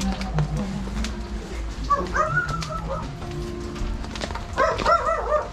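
A dog barking in two quick runs of short, high yaps, one about two seconds in and another near the end, over a steady low street rumble.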